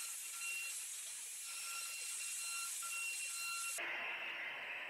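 Faint running sound of a SmartBench CNC router at work: a high hiss with a thin high whine that cuts in and out. The sound changes suddenly near the end to a fuller hiss.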